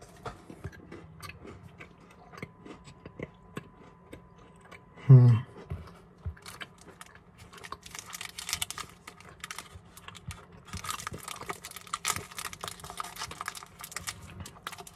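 Close-up crunchy chewing of a Twix bar, dense crackling bites that fill the second half. Before it come scattered small clicks and rustles, and about five seconds in a single short, loud vocal sound.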